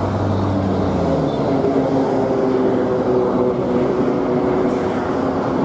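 Bus engine running, a steady low drone with a few held pitches that drift only slightly.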